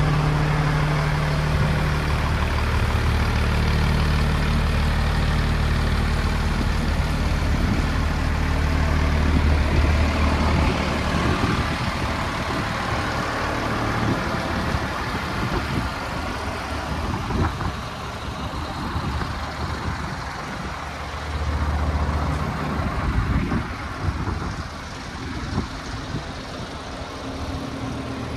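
Diesel engine idling steadily, with a deep even hum. Uneven low rumbling, like wind on the microphone, breaks over it from about a third of the way in.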